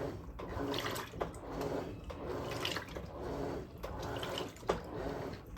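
Electrolux LM08A top-load washing machine with a dual-action agitator washing wet towels: water swishes in even strokes about once a second over a steady motor hum.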